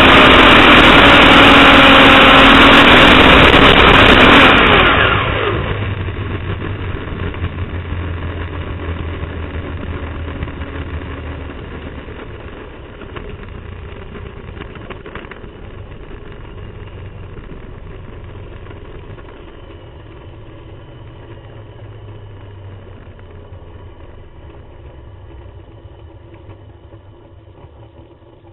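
Onboard a supercharged nitromethane fuel altered drag car: the engine is very loud at speed, then drops away abruptly about five seconds in. What follows is a low rumble with wind and chassis rattle that fades steadily as the car slows to a stop.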